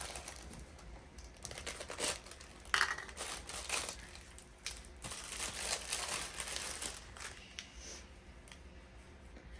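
Crinkly packaging rustling and crackling on and off as a small package is opened and handled.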